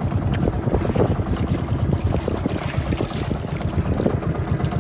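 Engine of an outrigger fishing boat running steadily with a rapid low pulse, with wind buffeting the microphone.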